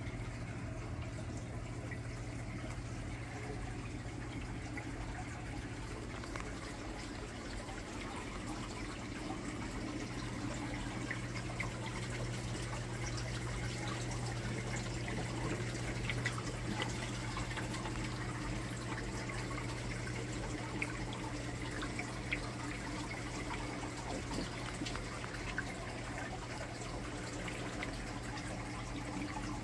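Steady running and trickling water from a reef aquarium's circulation, over a low steady hum, with scattered small drips and pops.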